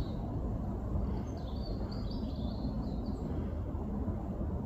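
A small bird chirping, a few quick high falling notes around the middle, over a steady low noise.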